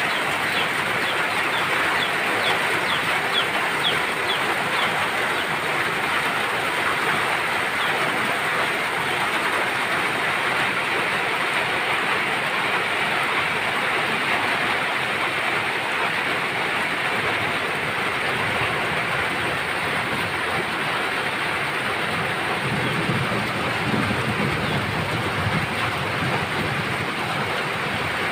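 Steady heavy rain falling on a muddy yard, with water pouring off a roof edge. A few faint high chirps sound through the rain in the first few seconds.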